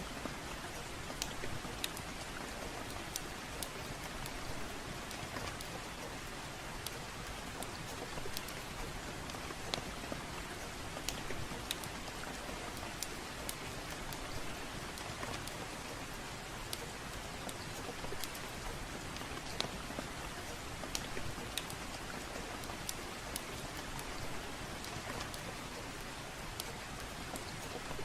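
Steady rain hiss with irregular sharp crackles and pops from a wood fire burning in a fireplace.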